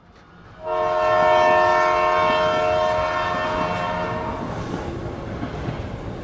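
A train horn sounds suddenly about half a second in, holding one chord of several tones for about four seconds, over the rumble of a passing train that slowly fades.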